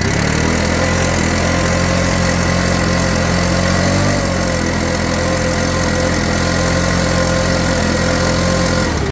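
Stihl BR600 backpack blower's four-stroke 4-MIX engine running steadily after a carburetor replacement, showing that the no-start fault is cured. The pitch wavers slightly about four seconds in.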